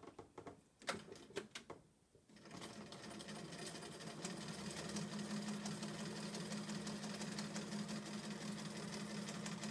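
Bernina electric sewing machine stitching a seam. A few light clicks come first, then about two seconds in the machine starts and runs at a steady speed with an even hum.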